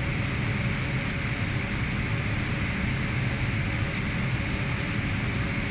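Steady whir of cooling fans, with two faint high ticks, about a second in and about four seconds in.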